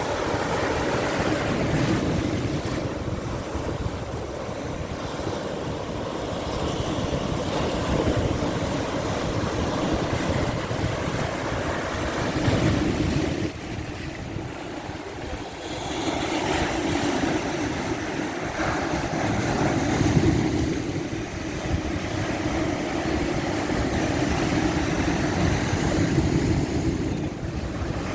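Ocean surf at high tide, waves breaking and washing in one after another, swelling and easing every few seconds, with wind rumbling on the microphone.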